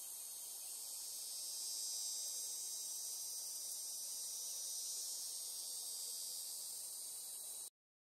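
Steady, high-pitched chorus of cicadas, cutting off suddenly near the end.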